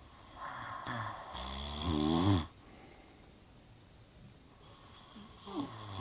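A man snoring in his sleep, two long snores about four seconds apart, each growing louder toward its end.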